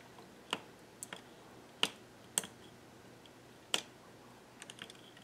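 Faint, sparse clicks of a latch tool knocking against the needles and printed plastic of a 3D-printed circular sock knitting machine while latching up a dropped column of stitches, about five single clicks with a quick run of small ticks near the end.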